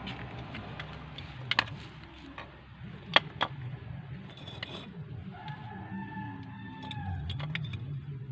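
A rooster crows once: a long pitched call lasting over a second, starting about five seconds in. A few sharp knocks come earlier, in the first half.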